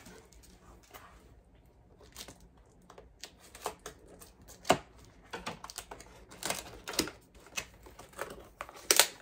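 Scissors cutting packing tape on a cardboard box, then the cardboard flaps being handled and pulled open: irregular sharp clicks and short rustles.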